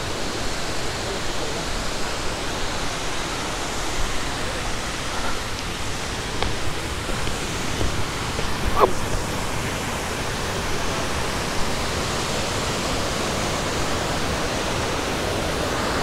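Steady rush of the Mae Ya waterfall, an even roar of falling water, with wind gusting on the microphone. A brief falling whistle-like tone about nine seconds in.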